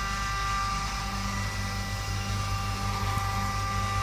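Copeland refrigeration compressor running steadily under load, a constant mechanical hum with a few clear steady tones.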